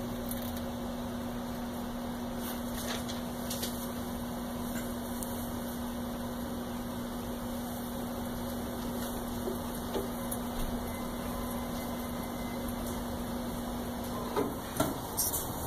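Electric hydraulic power pump humming steadily, one even tone, then cutting off about fourteen seconds in, followed by a few light knocks.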